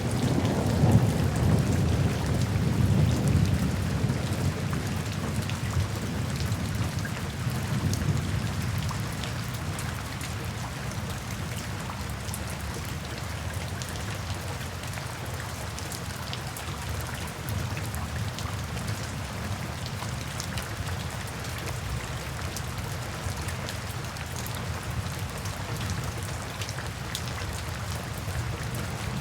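Steady rainfall with a low rumble of thunder that peaks about a second in and fades away over the next several seconds, leaving the even hiss of rain with scattered drop ticks.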